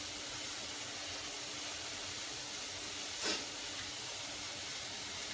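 Steady sizzling hiss of food frying in oil in a kadai on the gas stove, with one short sharp sound about three seconds in.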